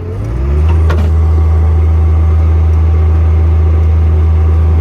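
Engine-driven Miller air compressor unit on a service-truck bed running: its engine note dips and then settles into a louder, deeper steady hum about half a second in, as the compressor comes under load.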